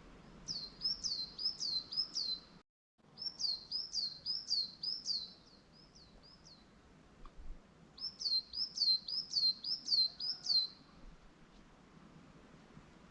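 A small songbird singing three runs of high, repeated down-slurred notes, about four a second, over a faint outdoor background. The sound drops out completely for a moment a little under three seconds in.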